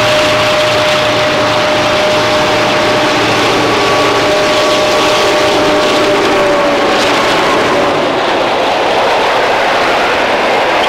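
Two T-class diesel-electric locomotives passing close by at the head of a passenger train. Their engines give a steady whine that dips slightly in pitch and fades about six seconds in, as they go past. It gives way to the growing noise of the carriages' wheels rolling along the rails.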